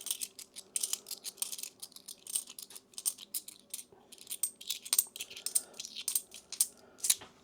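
50p coins clicking and clinking against each other as they are sorted through by hand, a rapid irregular run of sharp little taps with short pauses.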